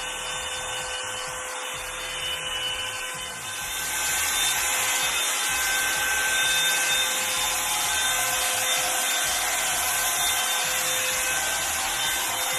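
Revlon One-Step hot-air brush dryer running steadily, a rush of air over a thin motor whine. It gets louder about three and a half seconds in.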